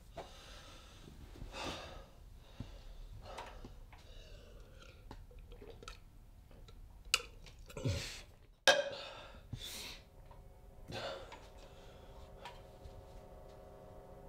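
A man's heavy, gasping breaths and sighs, with a sharp click in the middle as the loudest sound. A steady hum of several tones comes in near the end.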